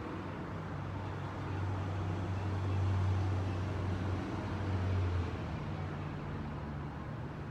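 Low engine hum of a passing vehicle over a steady wash of traffic noise. The hum swells about two seconds in and fades after about five seconds.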